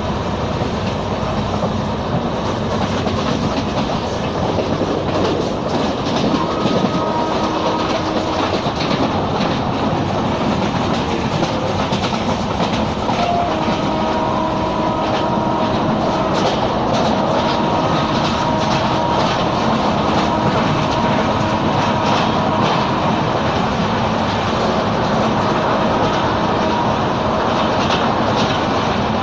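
Express passenger train running at speed, heard from inside a coach: a steady rumble and rush with the clickety-clack of wheels over rail joints, and a faint steady whine through the middle stretch.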